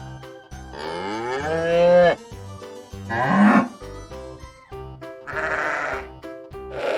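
Farm animals calling three times, each call lasting about half a second to a second and a half, over background music with a repeating note pattern.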